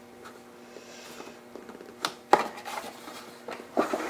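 Handling noise from a car seat's fabric padding and plastic shell being pulled and shifted: a sharp click about two seconds in, a louder one just after, and a run of short knocks and rustles near the end, over a steady low hum.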